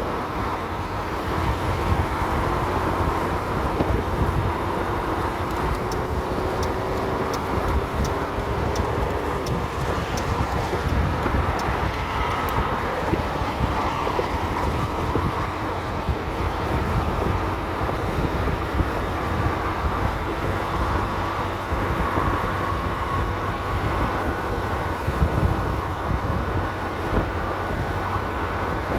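Motor scooter at highway speed: heavy wind buffeting on the microphone over a steady engine and road drone, with a faint whine that drifts slowly in pitch.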